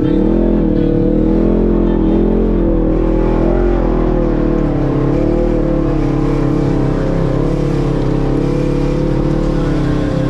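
Off-road vehicle's engine running steadily under way, its pitch rising and falling gently as the revs change.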